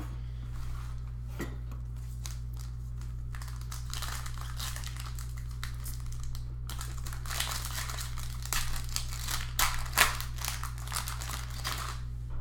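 Shiny foil trading-card pack being torn open and unwrapped by hand: crinkling and crackling that builds from about a quarter of the way in and is loudest about three-quarters through, with a few sharp crackles, then dies away near the end.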